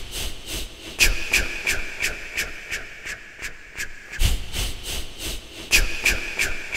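Sound effect of rhythmic hissing strokes, about three a second, over a steady hiss, with a few stronger strokes along the way.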